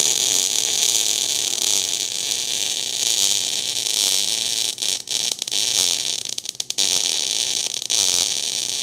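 MIG/MAG welding arc burning continuously with a crackling hiss, with a few short breaks and sharp pops past the middle. The voltage is set low, at about 16 volts, so the arc lacks force and lays a tall, humped bead.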